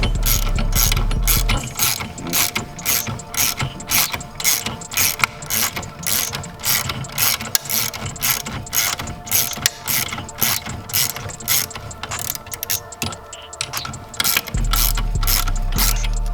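Hand ratchet tool being worked in steady strokes, its pawl clicking about three times a second. A low steady hum sits under it at the start and comes back near the end.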